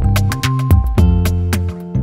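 Instrumental background music: plucked notes over a steady percussive beat.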